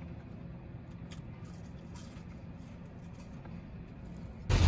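Low, steady hum inside a parked car, with a few faint ticks and rustles from handling food. Near the end it cuts suddenly to loud rain and road noise.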